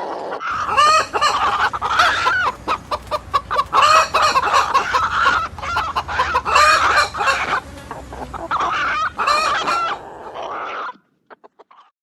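A flock of chickens clucking, with many short calls overlapping, over a low hum. The sound cuts off about a second before the end.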